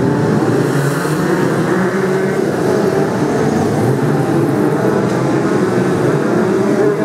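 Engines of a pack of Brisca F2 stock cars running together on the track: a loud, steady blend of several engine notes at once.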